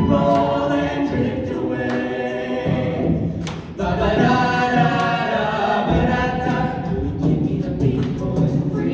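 Small mixed vocal ensemble of young men and women singing a cappella in close harmony into handheld microphones, with a short break about three and a half seconds in before the voices come back together.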